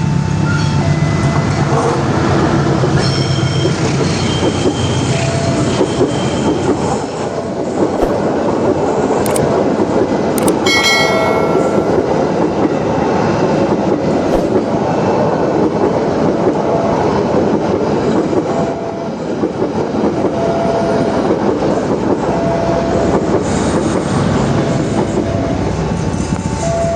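The KA 25 Argo Merbabu passenger train running past with steady wheel-on-rail noise. Short high wheel squeals come and go, with a brief sharp burst of squealing about eleven seconds in.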